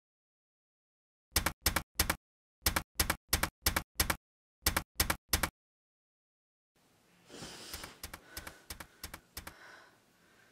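Typing sound effect of sharp key clicks in three quick runs, laid over silence as a title is typed out. Then, about seven seconds in, faint room noise with rustling and a few soft knocks from the bed.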